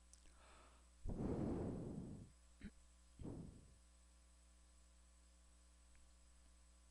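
A heavy breath out close to the microphone about a second in, fading over a second or so, then a short click and a second, shorter breath, over a faint steady hum.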